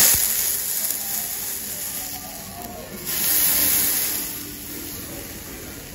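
Steak sizzling on a hot iron serving plate: a loud hiss that starts suddenly, fades, and swells again about three seconds in.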